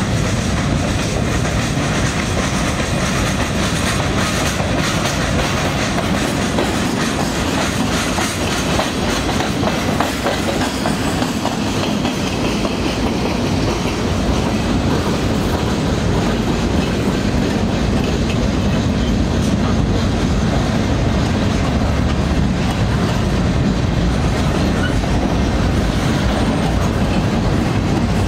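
Freight train cars, including empty centerbeam flatcars, rolling past close by: a steady noise of steel wheels running on the rails.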